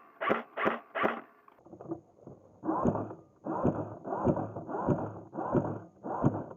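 Electric airsoft M4 rifle (VFC Avalon with a high-torque motor) firing. First come three quick single shots about a third of a second apart, then, after a cut, six short bursts of about half a second each in steady succession.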